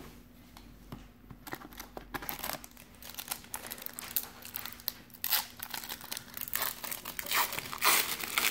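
Shiny wrapper of a Fleer Ultra basketball card pack crinkling and tearing open in quick, irregular crackles. The crackling is loudest near the end.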